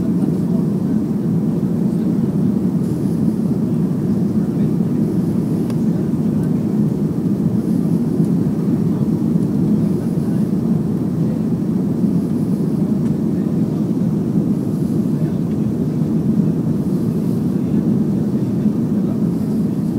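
Steady engine and airflow noise inside the cabin of a Boeing 737-300 airliner descending on approach to land, a low, even noise with no breaks.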